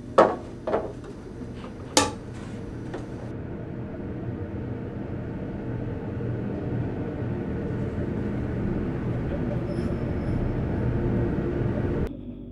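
Crockery clinking in a kitchen sink, three sharp ringing knocks in the first two seconds, then a steady low rumbling noise that slowly grows louder and cuts off suddenly near the end.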